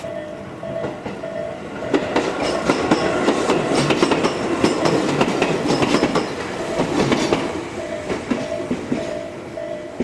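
Japanese level-crossing warning bell dinging about twice a second as an electric commuter train passes over the crossing, its wheels clacking over the rail joints. The train is loudest from about two to seven seconds in and nearly drowns the bell, which rings on plainly as the train clears.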